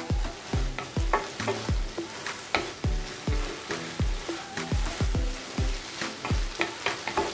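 Background music with a steady beat, about a thump every half second or so, over a wooden spatula stirring a thick vegetable-and-dal mixture in a kadai with a light sizzle as the last water cooks off.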